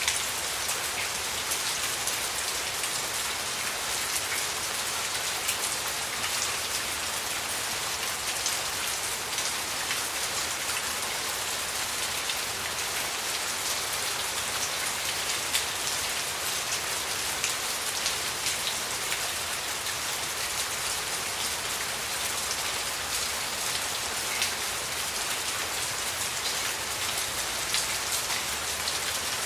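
Steady rain falling on a surface: an even hiss, strongest in the upper range, scattered with many small sharp drop ticks.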